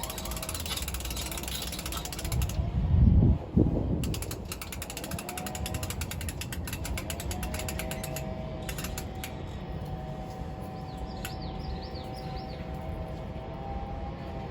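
Roofing work next door: runs of rapid mechanical clicking and a heavy thud about three seconds in.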